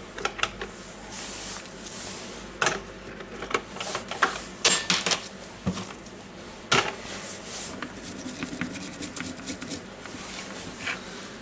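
Scraping and picking at the silicone coating on a cordless impact wrench's controller board with a small hand tool: irregular scratches and light clicks.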